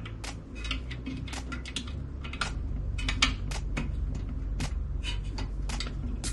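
Irregular light metallic clicks and ticks as bent-wire fan clips are handled and hooked onto a tower CPU cooler's fan and aluminium heatsink fins, over a low steady hum.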